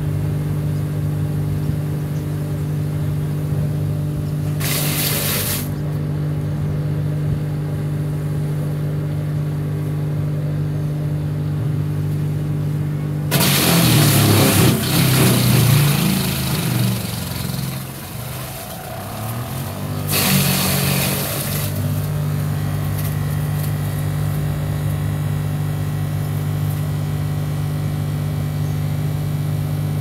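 Hansa C3e electric wood chipper's motor humming steadily at no load. About halfway through it chews through fresh-cut branches for several seconds: a loud, rough grinding during which the hum sags in pitch and then picks up again. A shorter burst of chipping follows a couple of seconds later, with a brief one about five seconds in.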